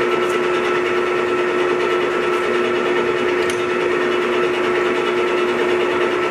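Clausing Metosa 24-inch by 120-inch engine lathe running under power, a steady mechanical whine.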